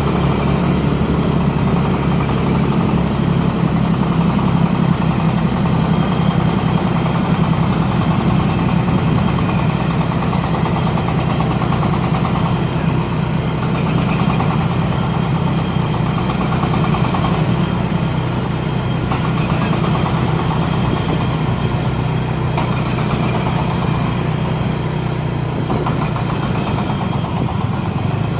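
An engine running steadily at constant speed, with a continuous low hum and no pauses.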